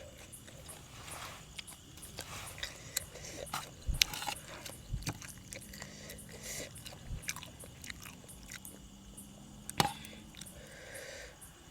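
Close-up eating sounds of a person biting and chewing spicy Thai seafood salad, wet clicks and smacks, with two sharp loud clicks about four seconds in and near the end. Crickets chirp steadily and faintly behind.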